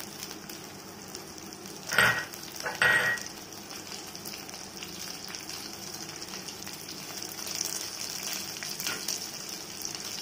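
Hot oil sizzling and crackling in a steel pot of tempering (dried red chillies, tempering seeds, shallots and onions) as fresh curry leaves are torn in by hand. There are two louder bursts about two and three seconds in.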